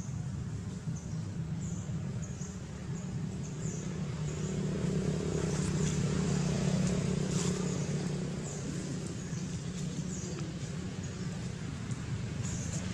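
A low motor hum, like a distant vehicle, that swells for a few seconds in the middle and then eases. Short high chirps repeat throughout.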